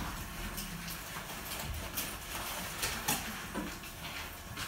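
Quiet classroom with a few short, light taps and scrapes of writing: chalk on the blackboard as a word is written, and pupils writing in their workbooks.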